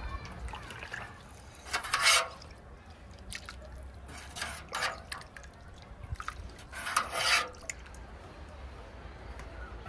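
Liquid splashing in three short spurts, with small drips and clicks between them.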